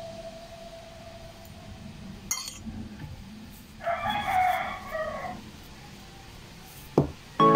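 A rooster crowing once, a wavering call of about a second and a half that starts about halfway through, over a low background hum; a lingering musical note fades out at the start and music comes back in at the very end.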